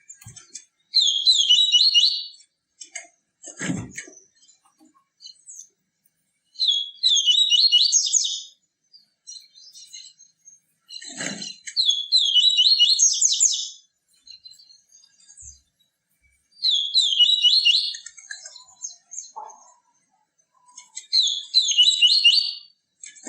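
Papa-capim seedeater singing its 'tui tui viviti' song: five similar quick, high twittering phrases, each under two seconds and about five seconds apart. Two faint low thumps come between phrases.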